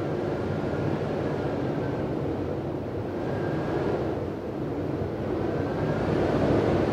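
Wind whistling through a door: a steady rushing draught that swells and eases, with a faint high whistle coming and going several times over it. It grows louder near the end.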